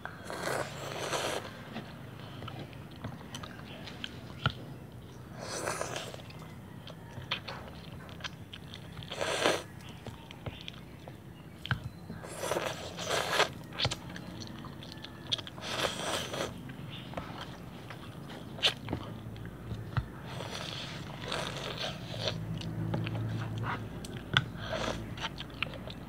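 Close-up eating of noodles with the mouth near the microphone: wet chewing with about half a dozen slurps of half a second to a second each, spread through, and small clicks between.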